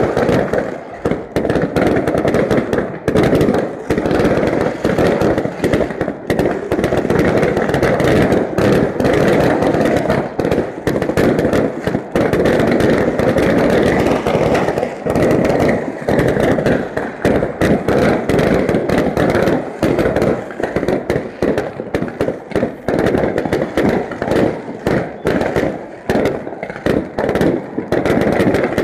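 Fireworks display: a dense, continuous barrage of bangs and crackling bursts with no pause.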